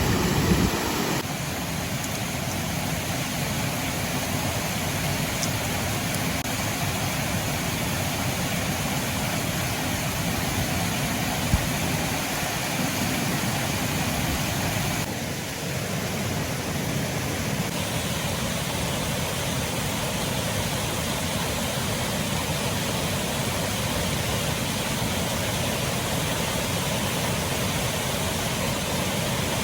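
Steady, even rushing noise, with one sharp click about eleven seconds in.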